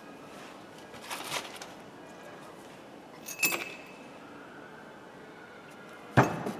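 Metal wheel-hub and bearing parts being handled and set down: a short rattle about a second in, a sharp clink that rings briefly in the middle, and a heavy knock near the end, the loudest of the three.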